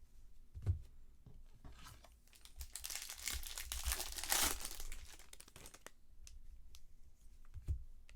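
A foil trading-card pack wrapper being torn open and crinkled, loudest for about two seconds in the middle, with a few light knocks before and after.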